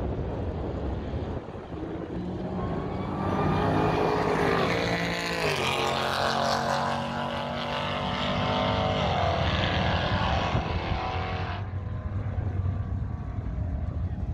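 Supercharged 6.2-litre Hemi V8 of a 2021 Dodge Charger Hellcat Redeye at full throttle on a quarter-mile drag-strip pass. Its pitch climbs from about two seconds in, drops at an upshift about five seconds in and again around nine seconds, then climbs once more. Wind buffets the microphone throughout.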